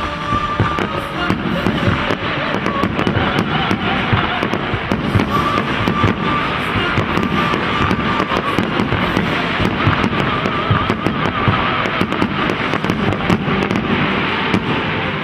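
Fireworks display: a dense, continuous run of rapid crackling and popping bursts, with music playing underneath.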